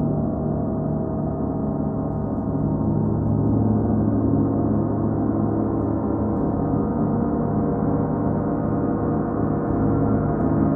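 38-inch Paiste gong sounding as a continuous, dense wash of many overlapping tones, mostly low, held at a steady level with no single strike standing out.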